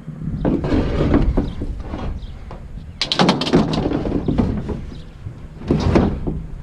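Knocks, thuds and clatter of objects being handled and moved, in three bouts (about half a second in, about three seconds in, and near the end), over a steady low rumble.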